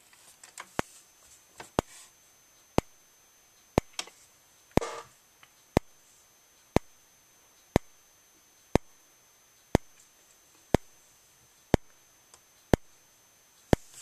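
Fire alarm strobe (System Sensor SpectrAlert P241575, fixed 15/75 candela) flashing about once a second, each flash a sharp click, over a faint steady high-pitched whine.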